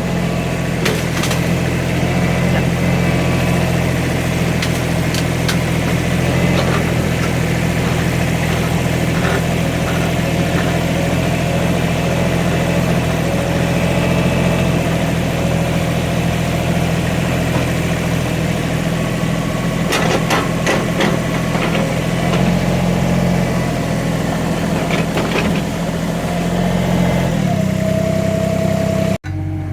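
Small Cat excavator's diesel engine running steadily while digging, with scattered metallic clanks and knocks from the bucket working the soil. Near the end the engine note shifts and a steady higher whine comes in.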